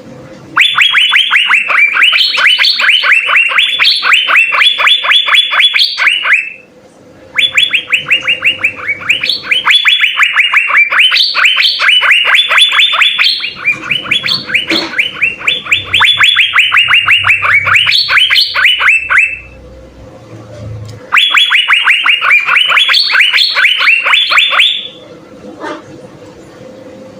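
Asian fairy-bluebird (cucak biru) singing in long strings of rapid, repeated notes, about five a second, each dropping in pitch. The strings come in three runs with short pauses between.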